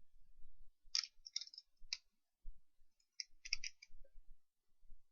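Plastic Lego pieces clicking as they are handled and pressed together onto the car's axle assembly. A few sharp clicks come about a second in, and a quick cluster of them around three and a half seconds in.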